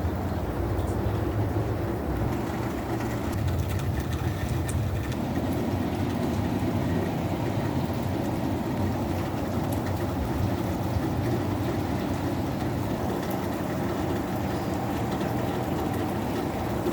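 A steady low rumble with no clear rhythm or pitch.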